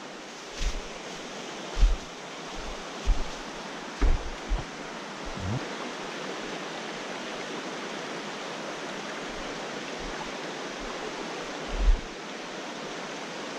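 Shallow mountain creek rushing steadily over rocks and riffles. A few dull low thumps come in the first several seconds and once more near the end.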